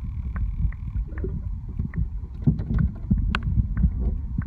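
Muffled water noise heard underwater: a steady low rumble of moving water with scattered small clicks and taps. A faint high steady whine fades out about a second in.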